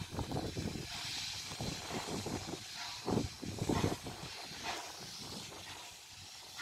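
Steady distant hiss of steam from a Pt47 steam locomotive standing at the platform, with wind buffeting the phone's microphone in gusts, strongest around the middle.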